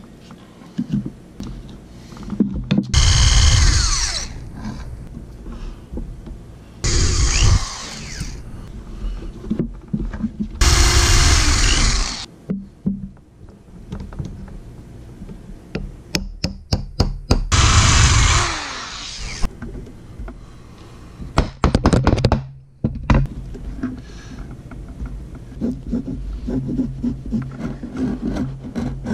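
Workbench tool sounds: four short bursts of a power tool, each a second or two long, between knocks, taps and clicks of hand tools and materials set down on the bench, with a quick run of clicks in the middle.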